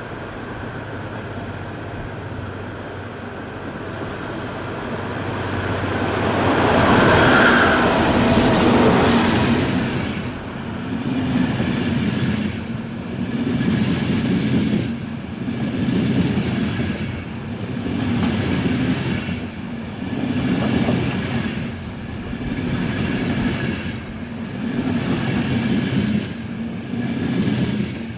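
A passenger train drawn by two DB class 218 diesel-hydraulic locomotives passes. The locomotives grow louder to a peak about seven seconds in. A long rake of ÖBB intercity coaches follows, its wheels clattering over the rail joints in a regular swell about every two seconds.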